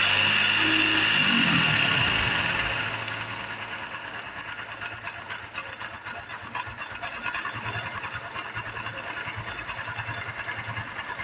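Honda Biz 110i's single-cylinder four-stroke engine running with a strong knocking rumble: it is revved at first and falls back to idle about two seconds in. The knock, which sounds like a knocking connecting rod, comes from a failing bearing on the camshaft.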